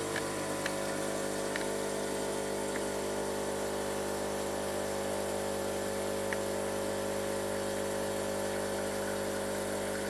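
Espresso machine's pump running steadily while it pulls a timed espresso shot, with a few faint ticks.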